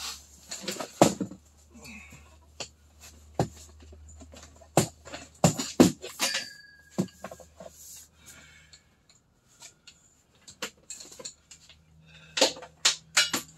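Irregular clicks, knocks and clanks of a boat's bimini top, its metal tube frame and fittings being unclipped and folded back, with a short metallic ring about six seconds in. A low steady hum runs underneath.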